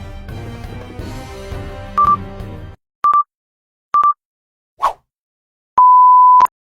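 Background music that stops about two and a half seconds in, followed by short electronic beeps about a second apart and one longer, slightly lower beep near the end.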